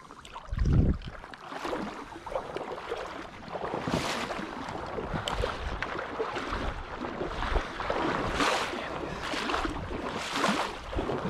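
Wading through shallow flood water and corn stubble, with splashing and swishing surges about once a second. There is a low thump under a second in.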